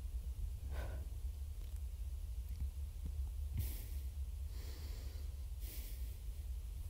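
A person sniffing through the nose three times, about a second apart, over a steady low hum.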